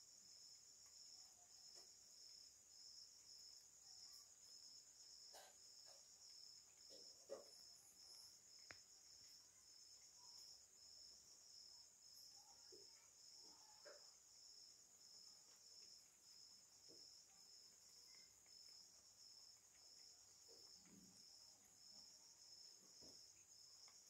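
Crickets chirping faintly and steadily: a high pulsing trill repeating evenly over a continuous high hum, with a few faint clicks here and there.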